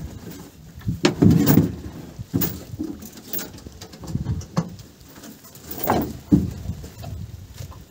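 Irregular thumps, knocks and rustling as gear and a cloth sack are handled and shifted about in a metal boat.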